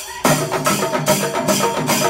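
Kerala chenda melam troupe playing chenda drums with hand cymbals in a fast, dense rhythm, picking up again after a brief dip at the very start.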